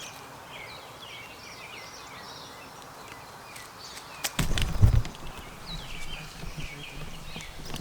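Small songbirds chirping and singing throughout, short high notes repeated over and over. About four and a half seconds in, a loud low rumble lasting under a second.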